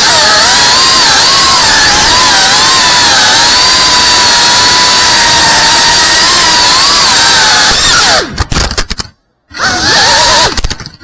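FPV quadcopter's brushless motors and propellers whining at a high pitch that wavers up and down with the throttle. About eight seconds in the whine drops, breaks up into clicks and cuts out for a moment, then starts again and dips once more at the very end.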